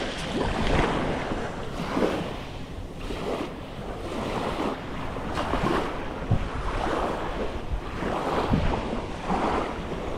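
Small waves washing up and drawing back over a pebble shore in swells every second or two, with wind rumbling on the microphone.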